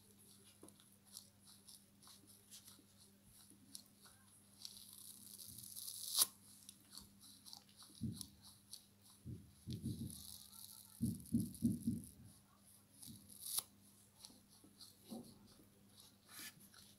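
Dry foam sponge being chewed close to the microphone: a run of fine crackly, tearing crunches, with two sharper snaps about six and thirteen seconds in and a cluster of deeper thudding bites in the middle.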